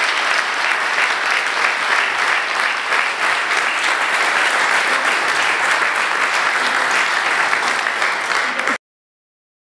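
An audience of graduates and guests clapping in steady, sustained applause, cut off suddenly near the end.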